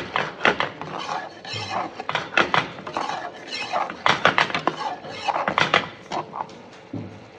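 Metal ladle stirring thick prawn masala curry in a metal pan, clinking and scraping against the pan in quick, irregular knocks that stop near the end.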